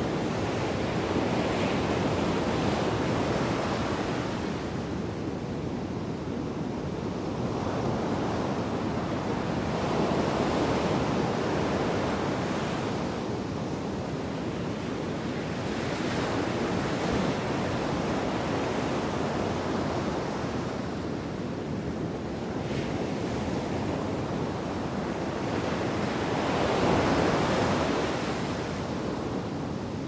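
Storm waves breaking on a pebble beach: a continuous rush of heavy surf that swells and ebbs every several seconds as each wave comes in.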